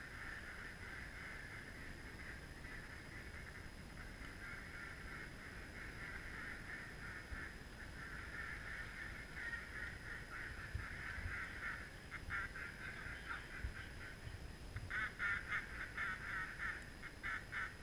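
Waterfowl calling: a continuous chatter of many calls, with runs of louder, rapid pulsed calls about twelve seconds in and again near the end.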